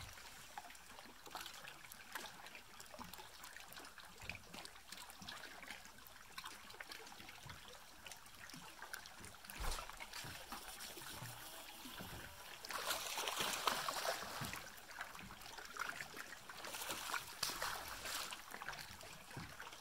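Small waves lapping and trickling against a boat hull, steady and quiet, with a louder rushing stretch about two-thirds of the way in.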